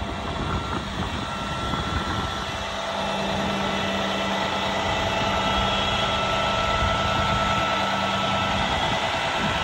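2013 International 7400 dump truck's diesel engine running, with a steady hydraulic whine as the dump box is raised. The whine and overall level rise a little about three seconds in and then hold steady.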